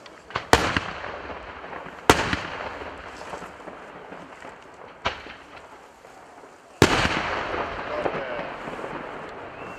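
Daytime fireworks: aerial shells bursting high overhead with sharp bangs. Three loud reports come about half a second, two seconds and nearly seven seconds in, and a lighter one around five seconds; each is followed by a long rolling echo.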